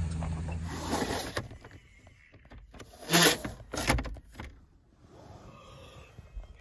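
A few short sliding, rustling noises, the loudest about three seconds in, with a low thump just before four seconds; then it goes quiet.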